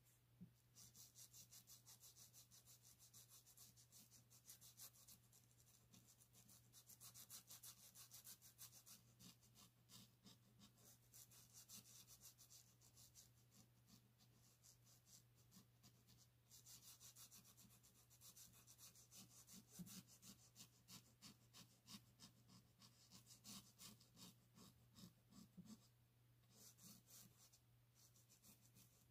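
Faint scratching of a pencil on paper in runs of quick, short strokes with brief pauses, over a steady low hum.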